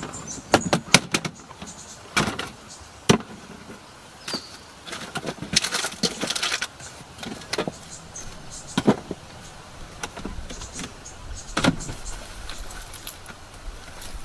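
Camp gear being handled: scattered sharp clicks, knocks and clinks, with a stretch of rustling about six seconds in.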